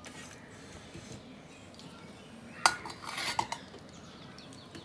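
Stainless steel bowl and steel plate clanking as curry is tipped out onto the plate: one sharp metallic clink with a brief ring a little over halfway through, then a second of lighter knocks and scraping.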